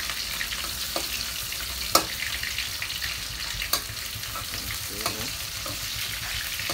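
Mushrooms deep-frying in hot oil in a wok: a steady sizzle, with a few sharp clicks of a metal spatula against the pan, the loudest about two seconds in.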